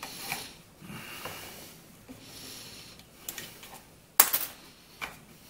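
Handling noise from working a wire hook and fingers in the filler neck of a Husqvarna 125B leaf blower's plastic fuel tank: soft rustling and scraping, with a sharp click a little past four seconds in and a smaller one about a second later.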